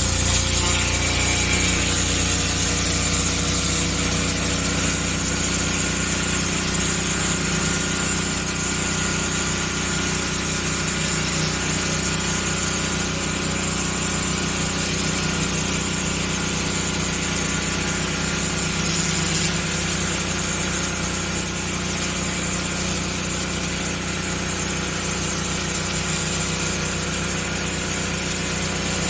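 Pressure washer running steadily, its motor humming under the hiss of the high-pressure water spray.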